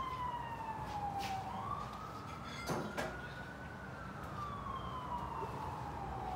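An emergency vehicle's siren wailing: one tone sliding slowly down in pitch, then rising and falling again over about four seconds and starting to rise once more near the end. A few sharp clicks and knocks come around the middle.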